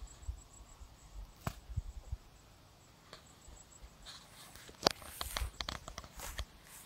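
Footsteps on a dry dirt path and rice stalks brushing against the walker: scattered soft clicks and rustles over a low rumble, with a sharp click about five seconds in and a close run of clicks after it.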